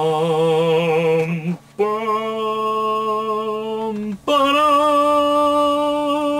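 A man singing three long held notes on an open vowel, each pitched higher than the last, the first wavering with vibrato, like a mock-heavenly choir.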